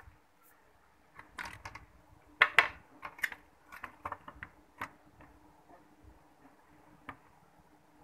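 A run of light plastic clicks and knocks, loudest about two and a half seconds in, with one more click near the end: wire-harness connectors being handled and pushed onto a washing-machine control board.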